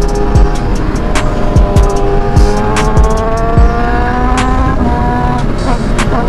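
BMW S1000RR inline-four engine pulling up through the revs at freeway speed, its pitch climbing steadily and then dropping about five seconds in as it shifts up a gear. Wind buffets the microphone throughout.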